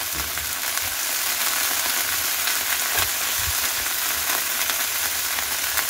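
Chopped coriander leaves sizzling in hot oil in a nonstick frying pan, with a silicone spatula now and then scraping and spreading them.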